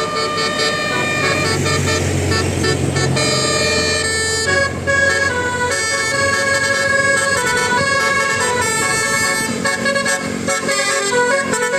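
Indonesian bus 'telolet' basuri multi-tone air horn playing a tune, several pitches sounding together and stepping from note to note. A low rumble sits under the first few seconds.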